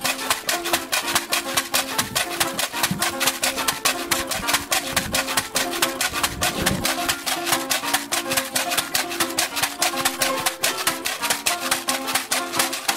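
Background music with a quick, steady percussion beat of shaker-like strokes under a simple repeating melody.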